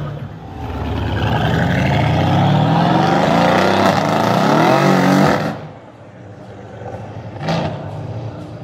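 Twin-turbo Mercedes C63 AMG Black Series V8 accelerating hard, revs climbing. The engine sound drops away suddenly about five and a half seconds in, leaving a quieter engine note and one short sharp noise near the end.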